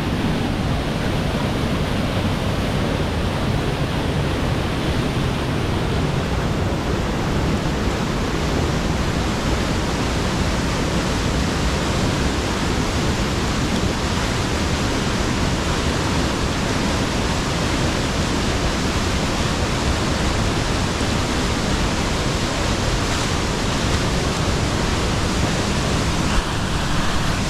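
Waterfall pouring close by: a loud, steady rush of falling water with no break.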